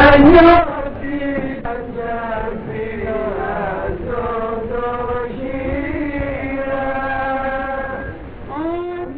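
Greek sponge divers singing a slow, chant-like song of long held notes, loud for the first half second and then softer. The narrow, top-less range of an early 1930s film soundtrack.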